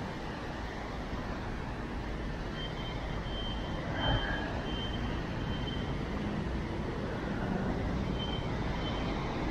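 City street traffic running steadily on wet roads, with two runs of short high beeps about every two-thirds of a second and a single knock near the middle.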